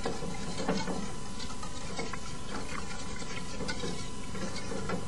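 Wire whisk stirring a sauce in an aluminium pot, giving light, scattered ticks and scrapes against the pot over a steady hiss.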